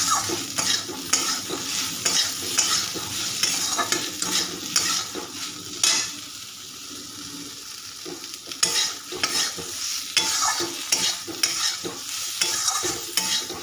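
Flat metal spatula scraping and stirring brinjal and potato cubes frying in oil in a metal kadai, over a sizzle. The strokes ease off for a couple of seconds about halfway, then come quickly again.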